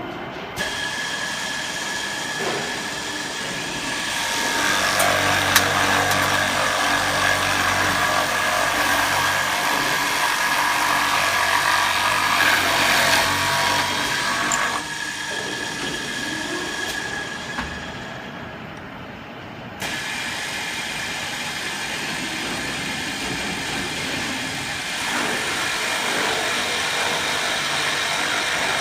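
Door-lock drilling machine running: a steady motor whine with a rough cutting noise. It is loudest for several seconds in the first half, drops to a quieter run, and comes back on abruptly about two-thirds of the way in.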